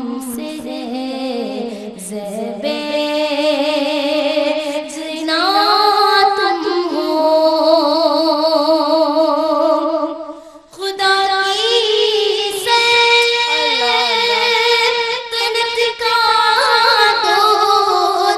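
A woman singing a naat (devotional song in praise of the Prophet) into a microphone, with long held notes that waver in pitch and a short pause for breath about ten and a half seconds in.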